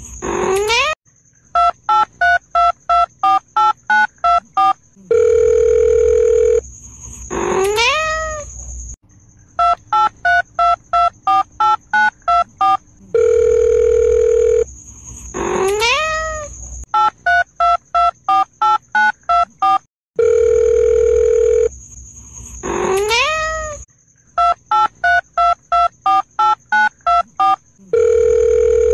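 Telephone dialling sound effect alternating with a cat's meow: a steady dial tone, a single rising meow, then about ten quick keypad (DTMF) beeps at roughly three a second. The cycle repeats four times.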